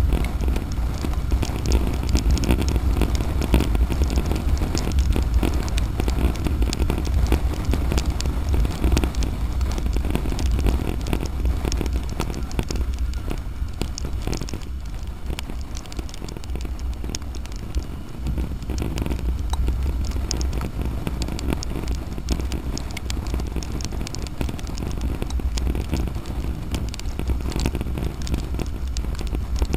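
A motorcycle riding on a wet highway in the rain: a low wind rumble on the microphone, with dense crackly ticks of raindrops striking the camera and windscreen. The sound eases a little midway.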